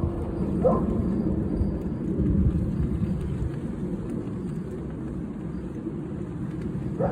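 Gusty wind buffeting the microphone: a low rumble that swells and eases. A short squeak under a second in.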